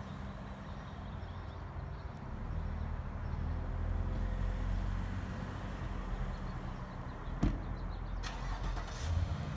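A car engine running at idle close by, a steady low hum that grows louder about two and a half seconds in. A single sharp knock comes near the end.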